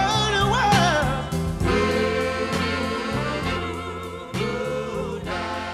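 Background music: a soul-style song with a sung vocal over a steady beat and bass, fading out near the end.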